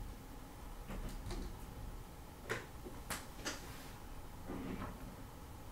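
Light clicks and taps of hard plastic as a Lion-O action figure is handled and its sword accessory is fitted into its hand. A handful of small clicks, the sharpest clustered in the middle.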